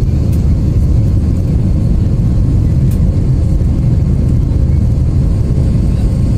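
Steady low roar of an Airbus A320 in its climb after takeoff, engine and airflow noise heard inside the passenger cabin, with a faint high steady tone over it.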